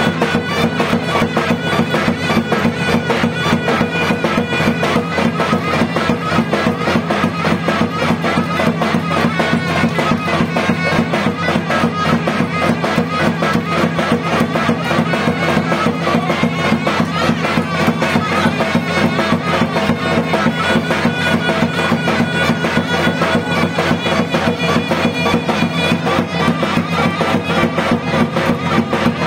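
Traditional folk dance music played without a break on a loud reed wind instrument, with a steady low tone under the melody and a fast, even drumbeat.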